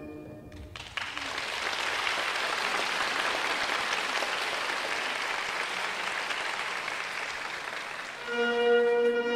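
Theatre audience applauding steadily for several seconds as the music ends. Near the end, orchestral music starts again with long held notes.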